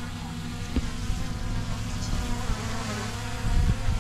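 Small quadcopter drone hovering, its propellers giving a steady multi-toned buzzing whine, with a brief low rumble near the end.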